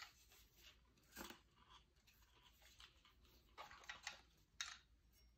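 Near silence, with a few faint, short rustles and clicks of hands handling an AR-15 pistol.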